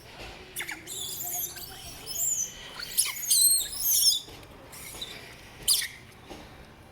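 Baby macaque squealing: a rapid run of short, very high-pitched squeaks that drop in pitch, loudest in the middle, with a few sharp clicks.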